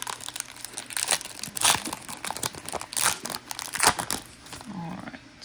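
Foil Pokémon booster pack wrapper crinkling and crackling as it is handled, in irregular bursts with a few sharper crackles partway through.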